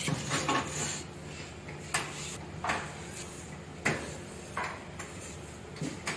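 A commercial electric range's stainless-steel control panel is pushed back into place and its control knobs are fitted onto their shafts: a series of sharp metal clicks and knocks, about one a second.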